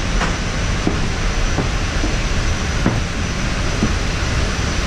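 Steady, loud roar of aircraft and ramp noise coming into the Airbus A350's open forward cargo hold, with a faint high whine and a few light ticks.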